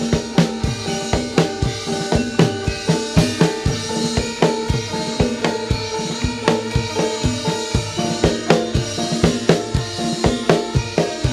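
Live jathilan accompaniment: gamelan metallophones ringing held tones over a steady, driving drum beat.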